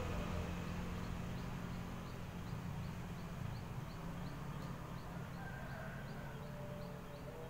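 Outdoor background: a low steady rumble with a faint, short high chirp repeating about three times a second.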